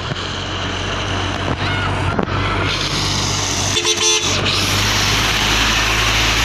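Tanker truck passing close, its engine and road noise building from about three seconds in. A short two-tone blast of its telolet musical horn sounds about four seconds in.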